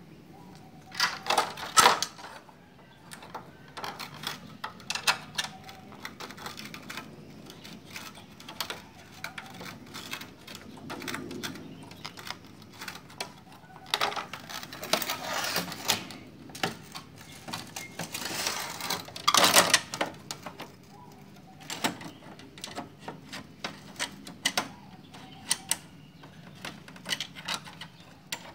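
Metal clicks and clatter from a car power window regulator and its hex-socket bolts being handled and fitted onto an aluminium door frame, with louder rattling spells about a second in, near the middle and around two thirds of the way through.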